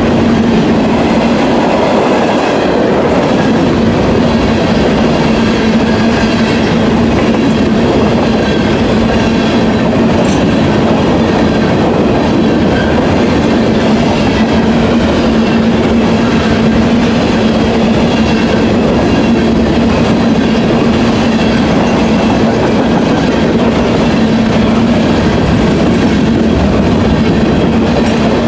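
CSX freight train of covered hopper cars rolling past close by: a steady, loud rolling noise of steel wheels on the rails, with a steady low hum under it.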